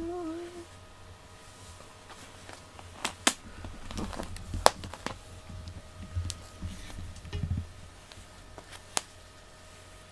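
A hummed note trails off at the start, then soft handling rustles as a hand strokes a cat's fur, with a few sharp, light clicks scattered through.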